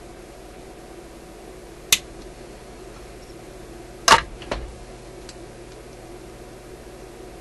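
Hand-tool handling at a workbench: a sharp click about two seconds in, then a louder double clack a little past halfway, like small metal diagonal cutters knocking against the radio chassis and being set down on the wooden bench. A faint steady hum runs underneath.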